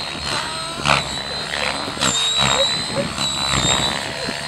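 Radio-controlled model helicopter flying past, its motor and rotors giving a steady high whine that wavers slightly. A brief sharp knock about a second in.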